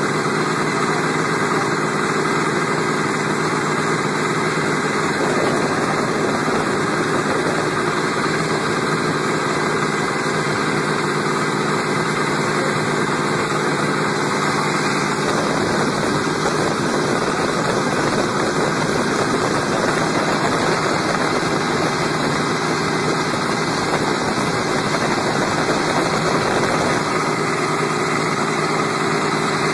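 Supercharged V8 boat engine running at a steady, unchanging speed while the boat is under way on the water.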